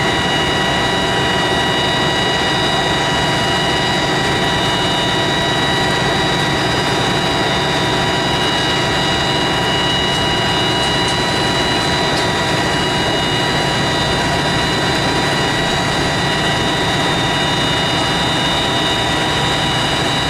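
A heavy engine running at a steady high speed, a loud unchanging roar with a constant high whine over it.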